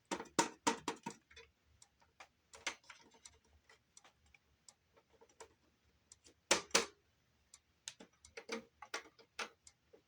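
A boombox's CD drive clicking and ticking irregularly as it tries and fails to read a disc, the laser pickup going in and out; the owner puts the trouble down to a worn-out trigger rather than a bad laser.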